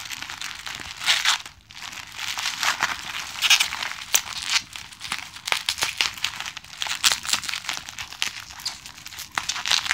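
Packaging wrap crinkling and rustling as it is handled and pulled open by hand, full of small crackles and ticks.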